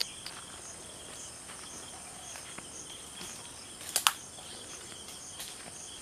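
Steady, high-pitched insect chorus trilling, with two sharp clicks about four seconds in.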